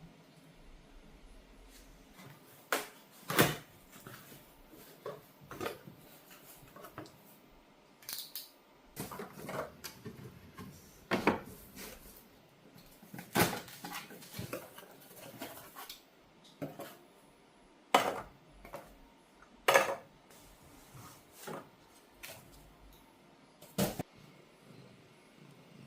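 Dishes and cutlery being handled: a string of irregular clinks and knocks, a few of them sharp and loud.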